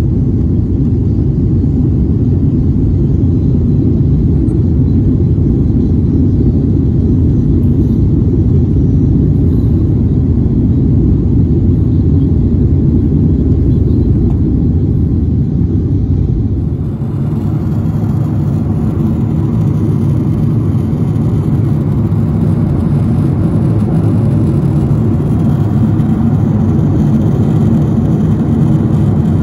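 Jet airliner cabin noise heard from a window seat: a steady low rumble of engines and airflow during the climb after takeoff. About 17 s in, the sound changes to a slightly quieter, hissier cruise-altitude drone.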